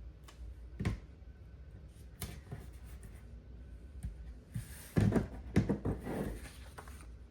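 Paper sticker sheets being handled while a sticker is peeled off and pressed onto a planner page: a few light taps and clicks, then a louder burst of paper rustling and crinkling about five seconds in.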